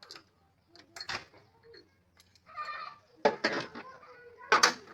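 Several sharp metallic knocks and clicks of hand tools and engine parts being handled during valve adjustment on a stopped engine. The loudest come about a second in, then in a cluster from about three to five seconds, with a short squeak or voice-like sound between them.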